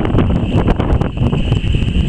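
Strong wind buffeting the microphone: a loud, rough rumble with frequent crackles and a steady high hiss underneath.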